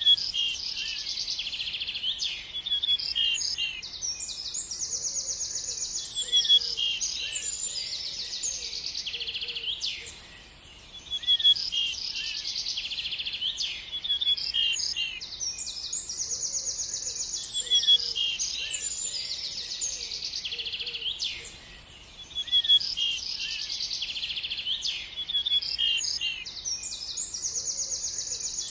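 Songbirds chirping and trilling together, with quick high chirps and fast rattling trills overlapping. The same passage repeats about every eleven seconds, with a short lull each time it starts over.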